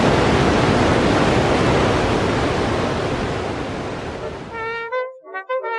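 Loud steady rush of a whitewater river tumbling over boulders, which fades a little and then cuts off abruptly near the end, where music begins.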